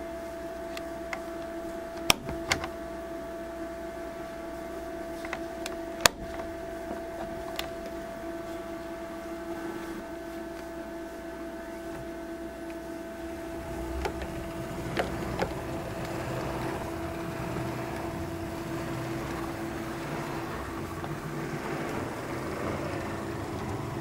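Toggle switches on a model railway control panel snapping over a few times in the first several seconds, above a steady hum. From about halfway on, an O gauge model tank locomotive's motor and wheels running along the track, with a few clicks over the rail joints, growing louder.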